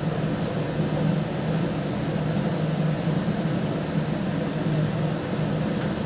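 Chopped tomatoes sizzling in hot oil in a non-stick pan while a wooden spatula stirs them, with a few faint scrapes, over a steady low hum.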